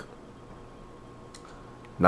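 Quiet room tone with a faint steady hum, and a single faint click a little past halfway.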